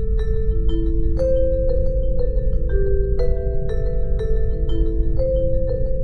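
Film score music: a melody of struck, ringing mallet-percussion notes, about two a second, over a deep, steady low drone.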